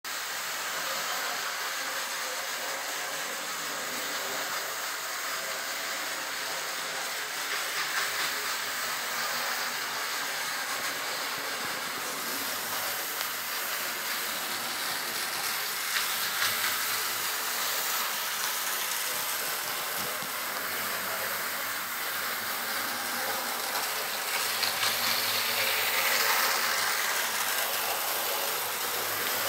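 Steady hissing railway ambience of trains, with a few sharper clicks and slightly louder toward the end.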